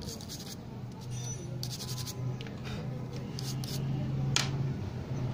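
Toothbrush bristles scrubbing over a phone's exposed rear camera lens and inner case: several short scratchy strokes, over a steady low hum.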